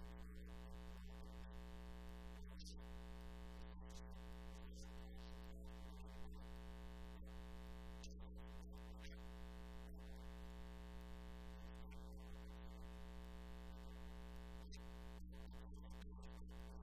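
Faint steady electrical hum, a low mains-type buzz with its overtones, unchanging throughout.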